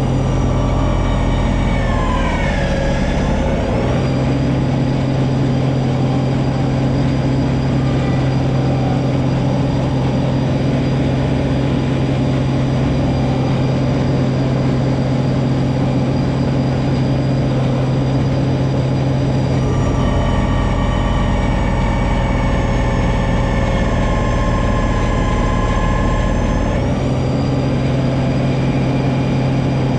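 John Deere 2032R compact tractor's three-cylinder diesel engine running steadily while driving its 60-inch front snowblower through deep snow. Its pitch dips about two seconds in and recovers, and shifts again in the second half.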